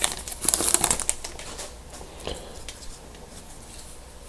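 A hockey card pack's wrapper crinkling as it is torn open and handled for about the first second, then faint clicks and rustles of the cards being handled.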